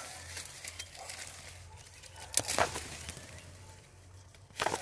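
Leaves and twigs of dense brush rustling and crackling as the brush is pushed through at close range. Two louder rustles come a little past halfway and near the end.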